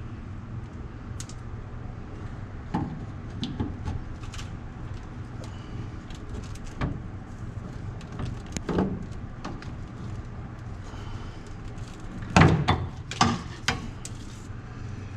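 Scattered knocks and clanks of metal parts and tools during the teardown of a rusty pickup, with a louder cluster of knocks near the end, over a steady low hum.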